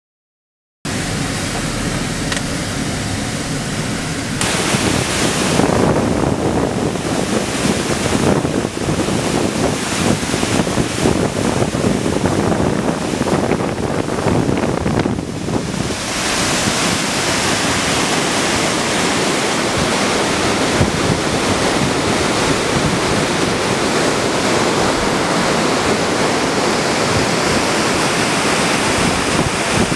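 A waterfall in full flood: a steady, loud rush of heavy, muddy water pouring down the rock face. It starts about a second in, and its character shifts abruptly about four seconds in and again around sixteen seconds.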